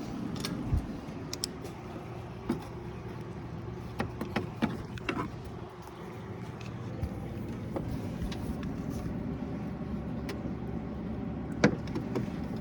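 Scattered sharp clicks and knocks of hand tools and parts being handled in a car's engine bay, the loudest near the end, over a steady low hum.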